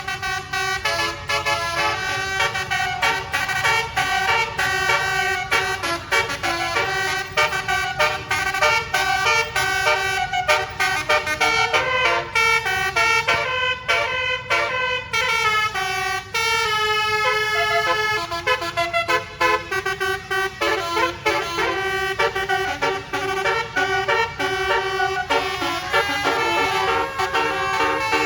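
Telolet basuri musical horn of the Rahma Nursyifa tour bus playing a long, fast melody of rapidly changing notes, with a few sliding notes about halfway through.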